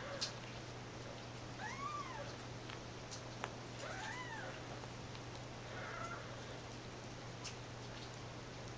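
Three-and-a-half-week-old kittens mewing while they play-wrestle: three short, high mews, each rising then falling in pitch, about two, four and six seconds in. A couple of sharp clicks and a steady low hum run underneath.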